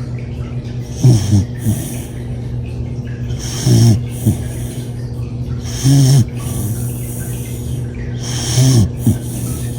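Snoring during a nap: four loud snores, each a short rasping rumble with a hissy edge, coming about every two and a half seconds over a steady low hum.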